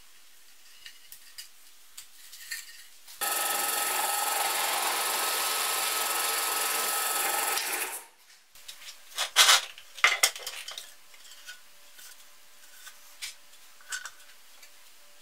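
Drill press running and drilling into plywood: a loud steady whir that starts suddenly about three seconds in and dies away about eight seconds in. Before it come faint clicks of small parts being handled, and after it a few louder knocks and clicks.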